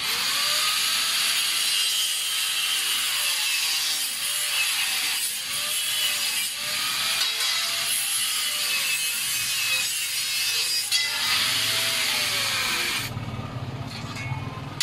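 Saw cutting through wood: a steady rasping hiss with a faint tone that rises and falls about once a second. It stops abruptly shortly before the end.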